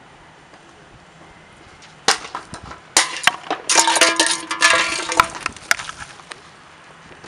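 Footsteps crunching on a gravel path as someone hurries up, a run of sharp, crunchy scrapes from about two seconds in until about six seconds in. Over the middle second and a half a steady, held tone rings out.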